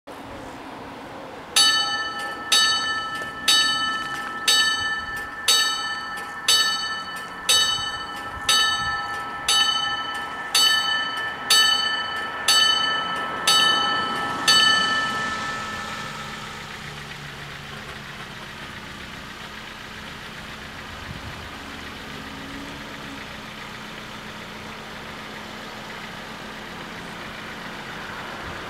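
Level-crossing warning bells striking about once a second, each stroke ringing out, signalling that a train is approaching as the crossing activates. They start about a second and a half in, give fourteen strokes and stop, leaving only a low steady background.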